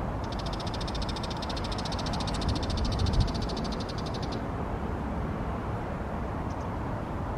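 Bull-headed shrike calling: a fast, even run of high chattering notes lasting about four seconds, then two short notes near the end, over a steady low background rumble.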